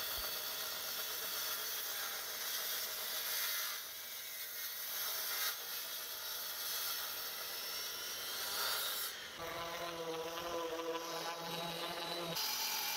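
Festool TS 55 plunge track saw running as it cuts across a maple butcher block at its full depth of about two inches. About nine seconds in the sound changes to a different, steadier machine hum.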